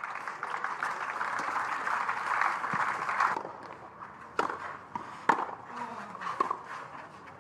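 Spectators applauding, a dense clapping that cuts off suddenly about three and a half seconds in. Then tennis rackets striking the ball in a rally, two sharp hits about a second apart.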